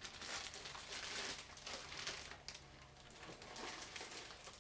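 Clear plastic bag around a model-kit parts sprue crinkling as it is handled and lifted away, loudest in the first couple of seconds, then quieter.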